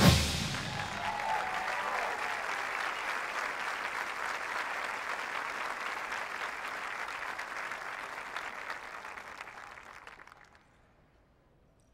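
Large stadium crowd applauding at the end of a drum corps musical number, the applause dying away over about ten seconds into near silence.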